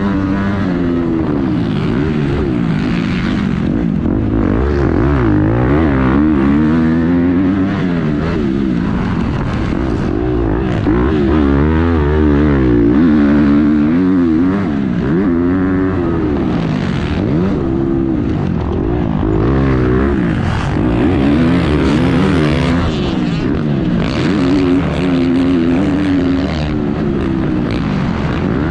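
Motocross bike engine heard from on board, revving up and falling back over and over as the rider accelerates, shifts and rolls off the throttle around a dirt track.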